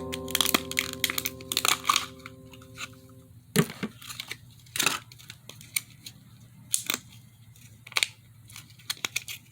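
Toy ball packaging being torn open and crinkled in short, scattered bursts, while a held chord of background music fades out over the first three seconds or so.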